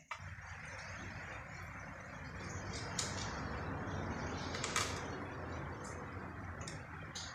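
A few light, sharp clicks of hands working at the terminal posts of a 7.5 kW three-phase electric motor being taken apart, over a steady, even rushing noise.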